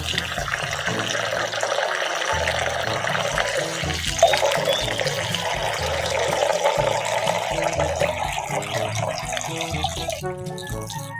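Water running from a tap into a sink, heavier from about four seconds in, over background music.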